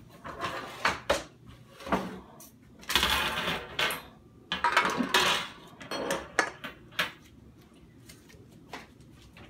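Metal wire cooling racks clattering and rattling as they are handled and set down on a kitchen counter. The clanks come in an irregular run and are loudest about three to five seconds in.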